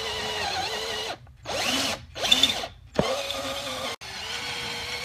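Power drill with an 11/64-inch bit drilling out the rivets in a strut-tower plate, running at a steady whine. It cuts out just after a second in, comes back in two short bursts, then runs steadily again.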